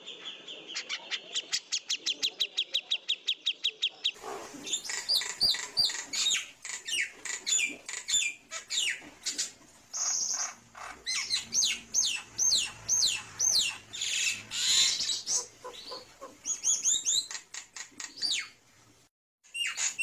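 Recorded songbirds singing, as used for training contest birds. First comes a fast train of identical repeated chirps, several a second. About four seconds in, an abrupt change brings a different bird's varied, rapid song of sharp down-slurred whistles and trills. A brief silence near the end is followed by another bird starting to sing.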